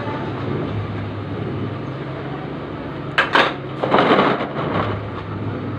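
A steady low machine hum with a pair of sharp knocks a little past halfway, followed by a brief clatter, like kitchenware being handled.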